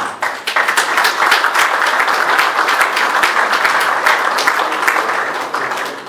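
Audience applauding: many people clapping in a room, starting suddenly and dying away near the end.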